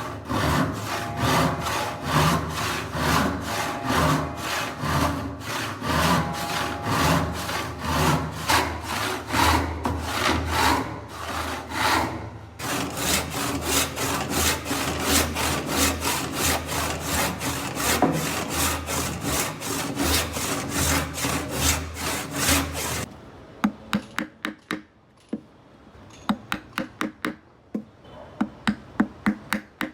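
Hand saw cutting wood with rapid, even back-and-forth strokes, pausing briefly about halfway. About three-quarters of the way through, the sawing stops and a run of quieter, sharp light taps follows.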